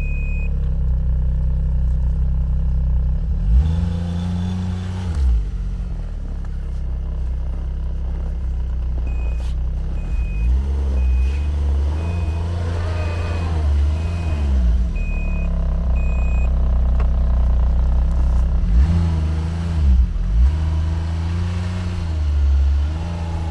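BRP Ski-Doo Grand Touring 1200 snowmobile's three-cylinder four-stroke engine running and revving up and back down several times as the sled is manoeuvred in deep snow. A reverse warning beeper sounds a steady string of beeps for about half a second at the start and again for several seconds midway.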